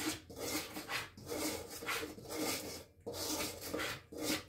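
Seasoned flour being stirred in a stainless steel mixing bowl: a run of scraping, rasping strokes, about one a second.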